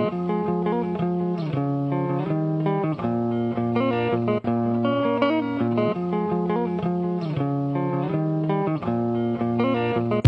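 Background music led by a plucked guitar, with notes changing in a steady rhythm.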